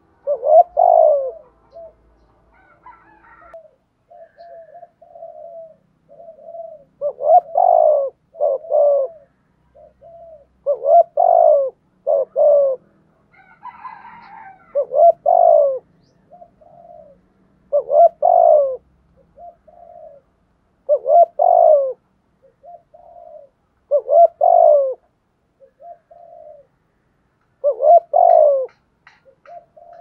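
Spotted dove cooing over and over, a phrase about every three to four seconds: a few soft short notes leading into a louder two-part coo.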